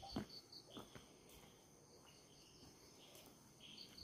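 Faint chirping of crickets: short high chirps repeating several times a second in trains over a steady high insect drone. A couple of soft low thumps sound in the first second.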